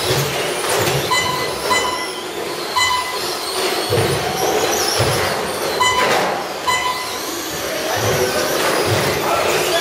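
Several Traxxas Slash electric RC short-course trucks racing on a carpet track, their motors whining up and down with the throttle. A steady high tone cuts in and out repeatedly, and there are scattered knocks through the run.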